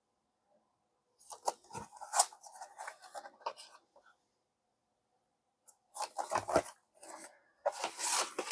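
Handling of a Blu-ray case and its folded paper insert: bursts of rustling and crinkling with a few light knocks, in two spells, one starting about a second in and one about six seconds in.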